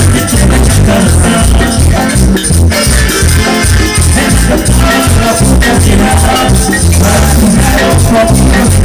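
Marimba orquesta playing live dance music through loud PA loudspeakers, with a strong, regular bass beat.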